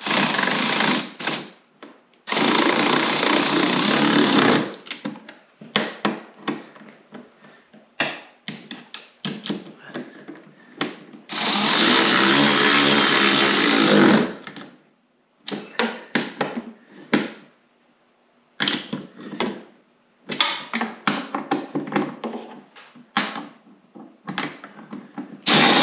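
Cordless power driver running the bracket mounting bolts in several bursts of two to three seconds, the last starting near the end. Short clicks and rattles of hand tools and hardware come between the bursts.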